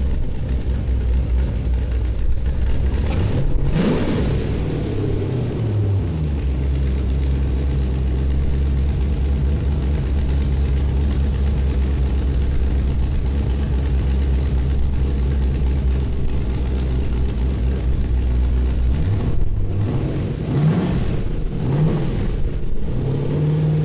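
Chevrolet LS3 6.2-litre V8 running on its first start, through stainless steel headers and a temporarily connected silencer box. It revs up and back down about three to four seconds in, settles to a steady idle, then takes a few short throttle blips near the end.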